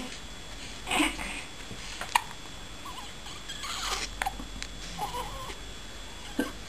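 Baby hiccuping: a few short, sudden hics spaced a second or two apart, with a small pitched baby sound in between.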